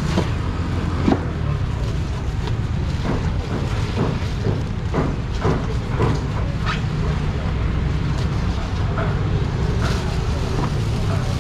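Market stall ambience: a steady low rumble with scattered knocks and clatter, and faint background voices.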